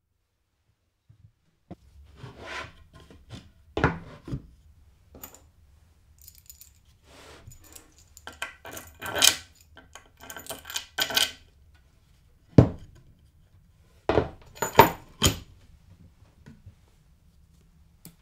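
Small metal parts clinking and tapping on a plywood board: bolts being fitted and turned with a hex key, with scattered knocks of metal and wood being handled. The clicks come irregularly, several with a bright metallic ring.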